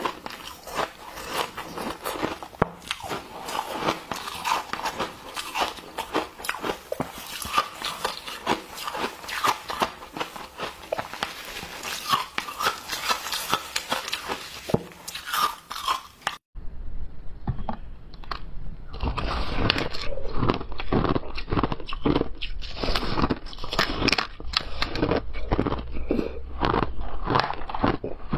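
Close-up ice eating: pieces of powder-dusted ice crunched between the teeth and chewed in rapid, repeated crunches. After a cut about 16 seconds in, a second recording of ice being bitten and crunched follows, louder.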